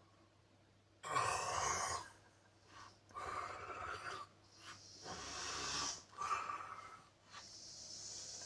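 A man snoring heavily in his sleep: after about a second of quiet, a run of about five loud, rasping snoring breaths, several ending in a high wheezing hiss.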